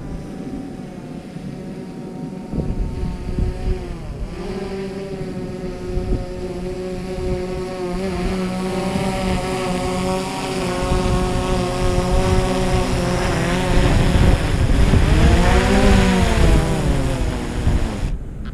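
DJI Mavic Pro Platinum quadcopter's propellers whining as it hovers close and comes in to land in strong wind. The pitch dips and rises a couple of times as the motors work against the gusts. It grows louder toward the end and stops abruptly just before the end, with wind rumbling on the microphone throughout.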